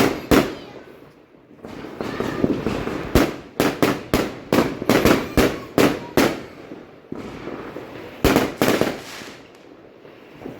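Fireworks going off: an irregular run of sharp bangs with crackling between them, bunching into rapid volleys in the middle and again near the end.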